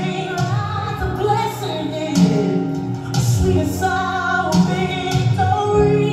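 Gospel song with a woman singing a melody over sustained instrumental backing.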